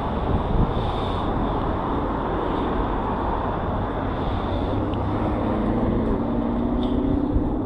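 Steady rumbling travel noise from an RTD light rail train, with an electric whine rising in pitch from about two-thirds of the way through as the train picks up speed.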